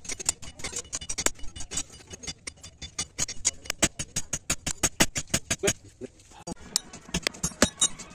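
Hand hammer striking a steel billhook blade on a small anvil block, in rapid metallic blows about five a second, with a brief pause about six seconds in.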